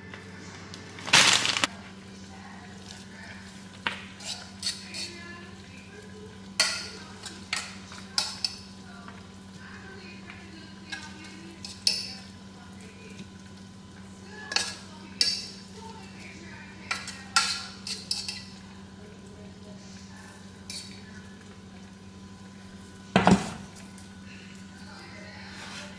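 A serving utensil knocking and scraping against a pot as rice is scooped out onto paper plates: scattered clinks and taps, with louder knocks about a second in and near the end, over a steady low hum.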